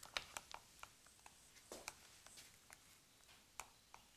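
Near silence, with faint scattered clicks and soft handling noise.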